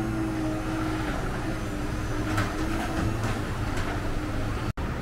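Electric garage door opener raising a sectional garage door: a steady motor hum and rumble with a few light clicks from the door moving along its tracks. It stops abruptly near the end.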